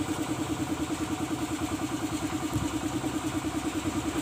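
A small engine idling steadily, with an even throbbing pulse about six or seven times a second. A brief soft thump about two and a half seconds in.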